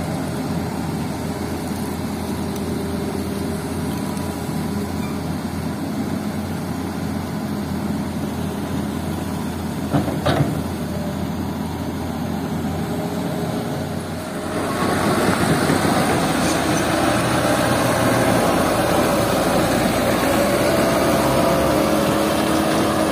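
Hitachi hydraulic excavator's diesel engine running steadily while it loads sand into a dump truck, with a short knock about ten seconds in. About two thirds of the way through, a louder truck engine takes over as the loaded dump truck drives off.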